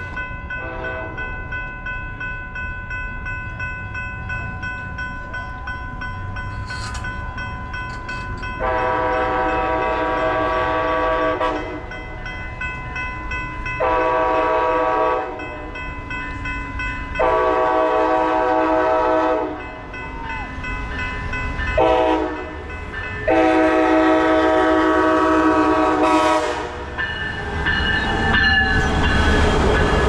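Diesel passenger train's horn sounding five blasts as it approaches a level crossing: three long, one short, then a final long one, the crossing warning pattern. The crossing signal bell rings steadily underneath, and near the end the train rushes past close by.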